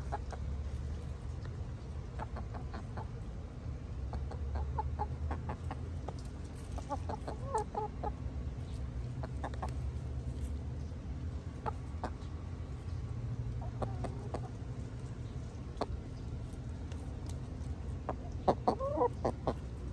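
Hens clucking, with short calls scattered throughout and a quick run of calls near the end. A few sharp taps and a steady low rumble sit underneath.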